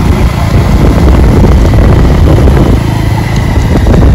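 Loud, steady low rumble of a vehicle on the move, with wind buffeting the microphone.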